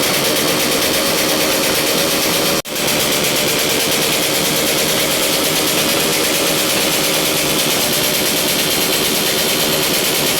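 Motorcycle engine with a loud exhaust running steadily at a held speed, without revving. The sound drops out abruptly for an instant about two and a half seconds in.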